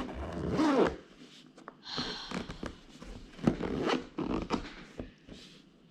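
Zipper of a camera carrying case being pulled open in several short rasping strokes.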